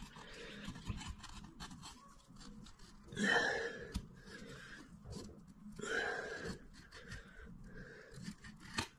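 A fillet knife slicing through gummy shark flesh along the backbone, faint crackly cutting and scraping, with two louder rasping strokes about three and six seconds in.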